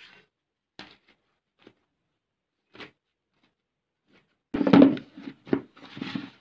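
Handling of a plastic insulated casserole: a few light taps, then a loud clatter of knocks about four and a half seconds in and two more knocks near the end as its plastic lid is put on and pressed shut.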